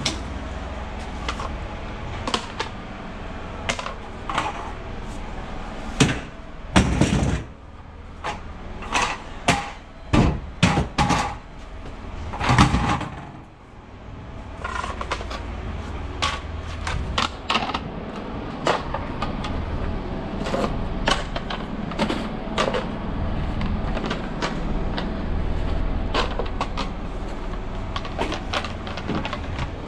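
Irregular knocks and clatter of load securing gear being handled on a trailer bed: plastic strap corner protectors picked up and stacked, and load straps pulled about. A run of louder knocks comes about a third of the way in, over a low steady hum.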